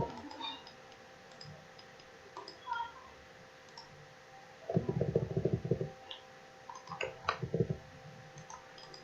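Scattered single clicks of a computer mouse, over a faint steady electrical hum.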